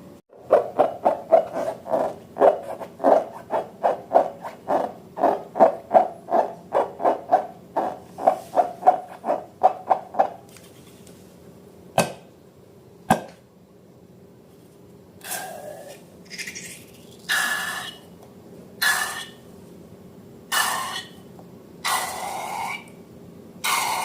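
Slime being worked by hand: a run of quick squishing strokes, about three a second, for some ten seconds, then two sharp clicks and a slower series of longer, hissy scraping strokes about every second and a half.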